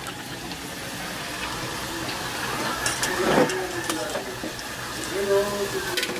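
Fries and chicken nuggets deep-frying in a pot of hot oil on a gas stove: a steady sizzle.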